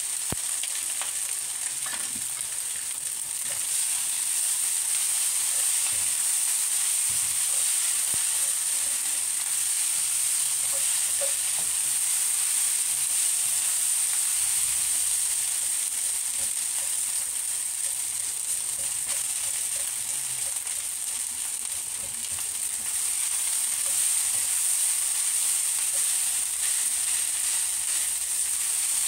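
Fried rice sizzling in a hot stainless steel wok while a spatula stirs and tosses it: a steady frying hiss with soft scraping, a little louder from about three seconds in.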